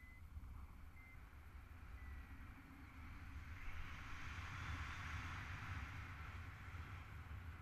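Wind rumbling on the paraglider's camera microphone through the final approach to a beach landing, with a hissing rush that swells about three seconds in and fades near the end. A few faint short beeps sound in the first two seconds.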